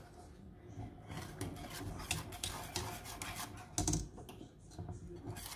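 Wire balloon whisk stirring thickening pudding in a stainless steel pot: a quick run of light clicks and scrapes as the wires rub against the pot, with one louder knock nearly four seconds in. The pudding is being stirred constantly as it thickens so it won't catch on the bottom.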